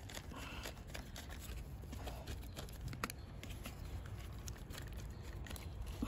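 Hands fitting small screws into a motorcycle's plastic instrument-cluster housing: soft scattered clicks and rustles of handling, with one sharper click about three seconds in.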